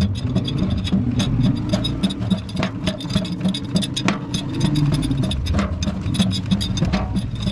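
Sheet-metal roller beading machine running with a steady motor hum while a stainless steel tank shell turns through its rollers, the thin shell rattling and clicking as it goes.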